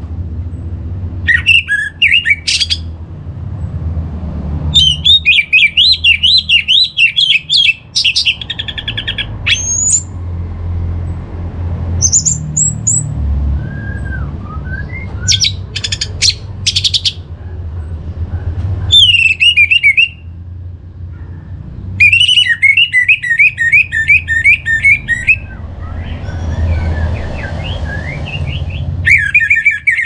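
Orange-headed thrush singing in bursts of fast, varied, high warbling and whistled phrases, broken by short pauses.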